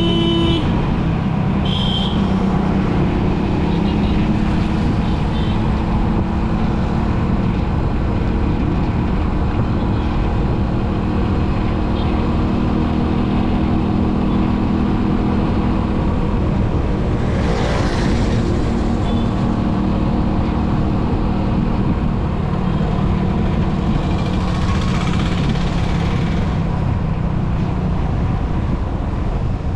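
Steady road noise from a vehicle driving along a busy highway: a continuous engine and tyre rumble, with traffic around it. About 17 seconds in and again around 25 seconds in, a louder whoosh of noise swells and fades, and a short high tone sounds about 2 seconds in.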